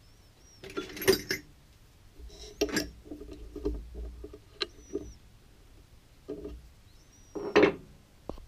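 Metal clicks, clinks and clunks from a stopped lathe being handled: the three-jaw chuck is turned by hand and the tool carriage and its levers are worked. The loudest knocks come about a second in and near the end, with a few faint, short, high squeaks between them.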